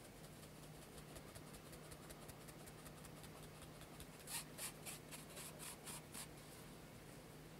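Fine-mesh metal sieve being shaken and tapped to sift cake flour into a glass bowl: faint, quick scratchy ticks, then a run of about eight sharper taps about four seconds in.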